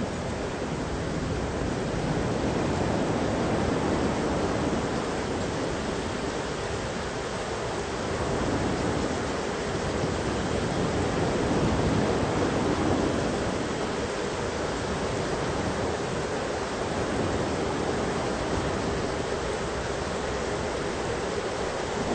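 Thunderstorm ambience: a steady rushing wash of noise, mostly low in pitch, that swells and eases a couple of times.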